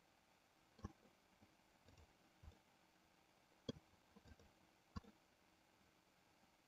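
Near silence broken by a few faint clicks of a computer mouse, three of them plainer than the rest, spread over several seconds.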